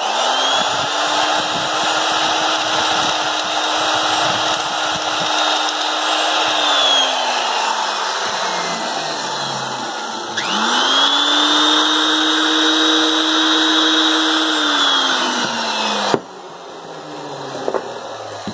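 Hitachi electric sheet-metal nibbler running: its motor whine rises as it starts, holds steady with a dense clatter from the punch, then falls away as it coasts down. It is started a second time about ten seconds in and coasts down again, and the loud clatter stops sharply near the end.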